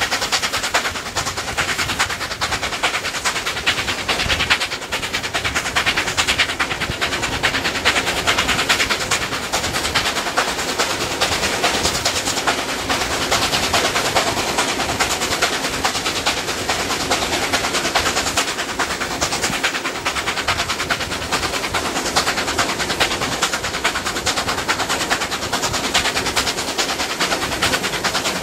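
NSW 38 class 4-6-2 steam locomotive 3801 running at the head of its train, heard from an open carriage window: a fast, steady stream of exhaust beats over the continuous rumble and clatter of the carriage wheels on the rails.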